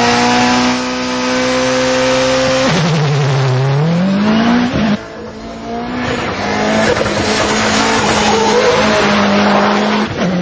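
Citroën Xantia 4x4 rallycross car's 600-hp turbocharged two-litre 16-valve engine running at high revs under hard driving, its pitch dipping and climbing again about three seconds in, cutting sharply about five seconds in, then pulling high and steady again. Tyres squeal and scrub on the tarmac throughout.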